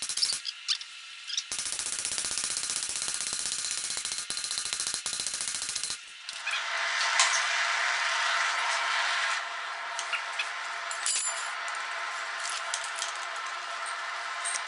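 A few hammer blows on hot steel on the anvil in the first second or so, then a steady rushing noise for the rest, louder from about six seconds in.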